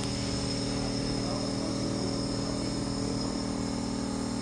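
Steady machine hum from a motor, several even tones held without change.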